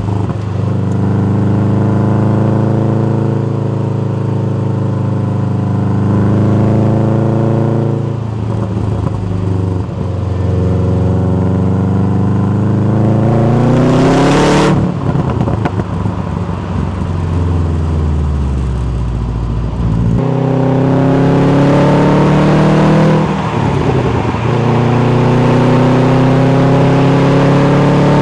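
Subaru WRX STI's turbocharged flat-four running through a factory sport muffler, revving up hard several times. The pitch climbs for a few seconds, breaks off suddenly, then sinks and climbs again as the car pulls through the gears.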